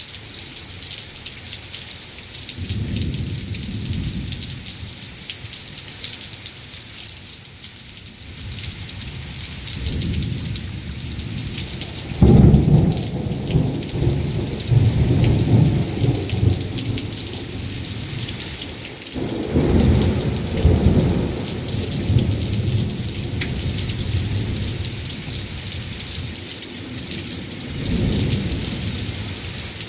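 Heavy thunderstorm rain, a steady hiss throughout, with several rolls of low thunder. The loudest clap starts suddenly about twelve seconds in, and another big rumble comes about twenty seconds in.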